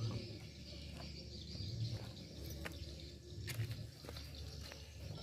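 Outdoor ambience: a steady high insect hum with a few short bird chirps, over a low rumble that swells about every two seconds.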